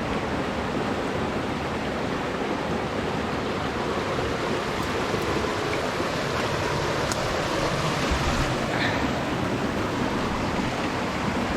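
Steady rushing of a flowing creek's water.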